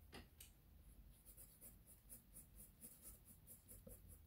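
Faint scratching of a 2H graphite pencil on drawing paper, a quick series of light shading strokes.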